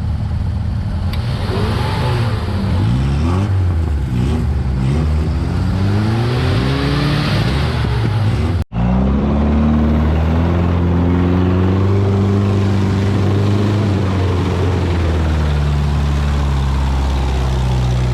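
Off-road 4x4 engine revving hard, its pitch rising and falling over and over. After a sudden break about halfway through, it runs on more steadily, with slow rises and falls in pitch.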